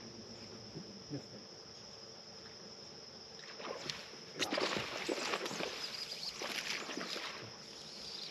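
Crickets trilling steadily. From about three and a half seconds in come irregular splashing bursts at the water's surface, as a bass hooked on a topwater walking bait thrashes and is played toward the boat.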